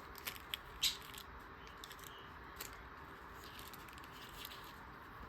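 Faint handling of thin paper collage pieces: a few short rustles and crinkles, mostly in the first second and once more a little later, over a steady low background hum.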